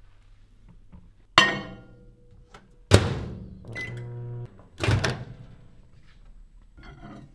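Microwave oven in use: its door knocks shut, a single keypad beep sounds, and the oven hums low for a moment. Three sharp knocks in all, the loudest about three seconds in.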